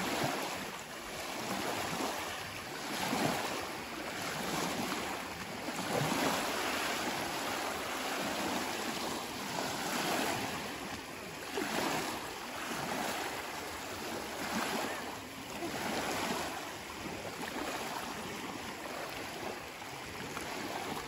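Small lake waves lapping and splashing in shallow water, with water sloshing around a person wading, rising and falling in repeated swells.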